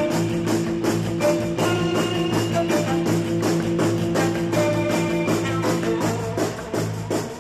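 Rock background music with a steady beat of about four strokes a second under held notes; a held chord drops out about six seconds in.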